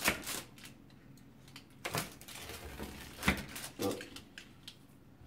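Rolling pizza cutter wheel slicing through a baked pizza on a paper-lined metal baking tray: four sharp knocks as the wheel presses through to the tray, with a scraping rasp of the wheel rolling through the crust between the second and third.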